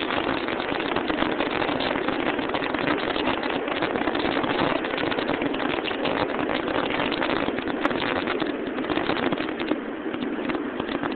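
R142A New York City subway train running past the platform as it leaves the station: a steady, loud rush of wheels and rails with rapid clatter. It eases off near the end as the last car clears.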